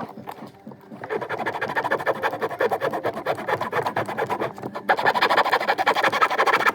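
Fast, continuous rasping strokes of a hand tool working a part during A/C hose and fitting work. They start about a second in and grow louder about five seconds in.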